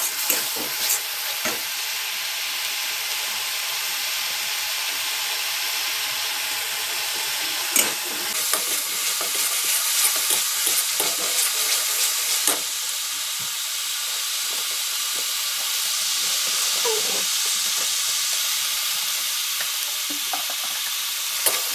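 A masala paste of ginger, garlic, onion, cumin and chili sizzling in oil in a steel kadai, stirred with a metal spatula. The frying hiss is steady, and the spatula gives a few sharp scrapes and knocks against the pan, the clearest about 8 and about 12 seconds in.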